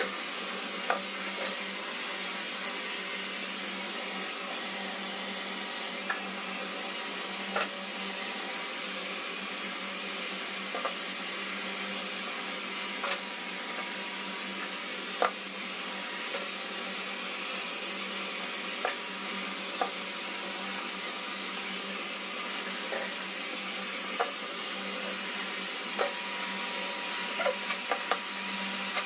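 Steady rushing air noise of a running motor with a low hum, over which come about a dozen sharp, scattered clicks of grooming scissors and a comb being worked through a rabbit's coat.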